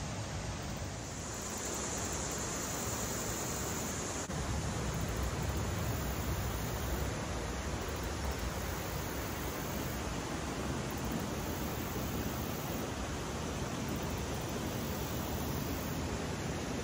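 Steady rushing of creek water over rocks, an even unbroken hiss. The level steps up slightly about four seconds in.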